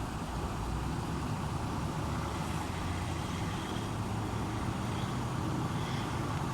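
A motor vehicle engine running steadily, heard as a constant low hum over faint road noise.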